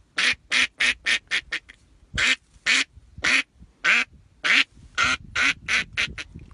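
Hunter's duck call blown to imitate wild duck quacking. A quick run of short quacks comes first, then a series of longer quacks that come faster and shorter toward the end.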